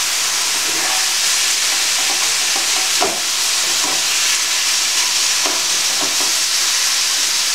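Chicken strips sizzling steadily in a frying pan, stirred and turned with a spatula, with a couple of light knocks of the spatula against the pan.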